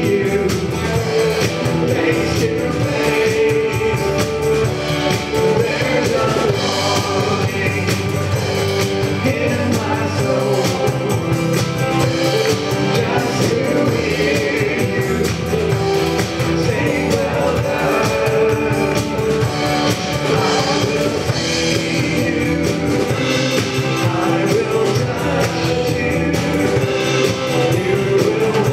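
Live church worship band playing a worship song: drum kit and guitar, with a lead singer and backing singers singing together.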